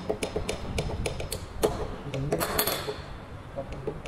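Light, irregular metal clinks and taps from hand tools and parts on a tractor dual-clutch pressure plate assembly as its release fingers are worked on, with a brief scraping sound about two and a half seconds in.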